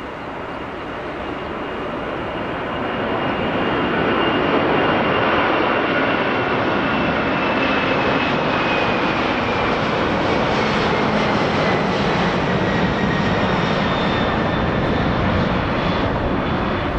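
Jet engines of a Boeing 747-400 running as the aircraft moves past, growing louder over the first few seconds and then holding steady, with a thin whine that slowly falls in pitch.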